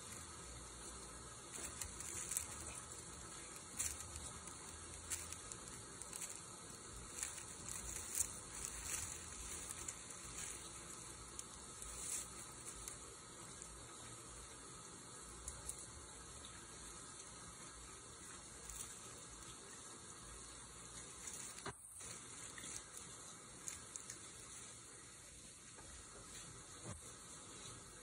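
Faint steady hiss with scattered soft crackles and rustles of dry leaves as kittens shift and groom in their leaf nest, busier in the first half.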